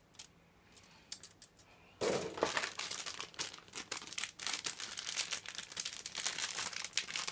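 A few light clicks of plastic kit runners being handled, then from about two seconds in, continuous crinkling of the thin plastic bags that the Gunpla runners are packed in as they are lifted out of the box.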